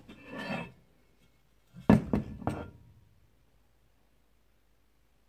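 Heavy cast-iron stocking hanger knocking against a table as it is handled: three sharp clunks in quick succession about two seconds in.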